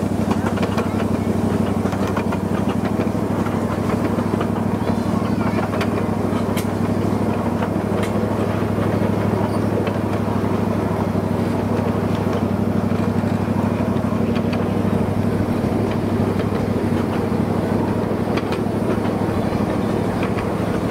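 Miniature train's engine running steadily, with scattered sharp clicks over the drone.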